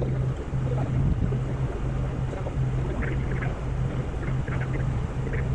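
A machine's engine running steadily, with a constant low hum and a rumble underneath.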